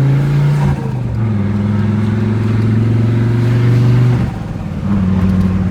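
Fiat Marea turbo's engine heard from the engine bay, running under load at a steady pitch. The note breaks off briefly about a second in and again after about four seconds, as when the throttle is lifted.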